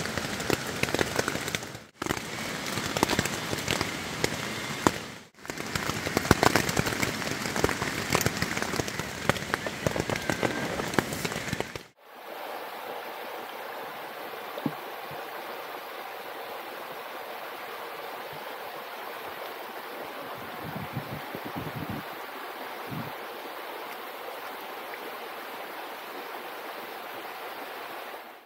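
Heavy rain falling on a tent's fabric, heard from inside the tent, a dense crackle of drops broken by two short cuts. About twelve seconds in it gives way to the steady, even rush of a small mountain stream running over rocks.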